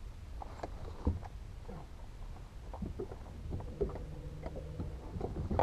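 Light knocks and clicks from an angler moving on the carpeted deck of a bass boat and handling rod and reel, over a steady low rumble of wind on the microphone. About three and a half seconds in, a steady hum comes in for roughly a second.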